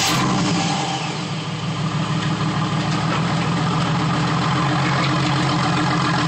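A 2007 Ford Mustang's 4.0-litre V6, fitted with shorty headers and a single exhaust without mufflers, idling steadily just after starting. It is heard from under the car, and its loudness dips slightly about a second in before holding level.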